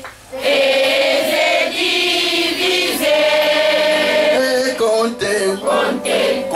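Church choir of mixed voices singing, with long held notes.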